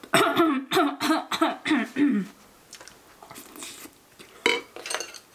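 A woman's closed-mouth vocal sounds, a quick run of short hums rising and falling in pitch for about two seconds as she tastes a mouthful of bibimbap. Then quieter chewing, with a couple of sharp clicks near the end.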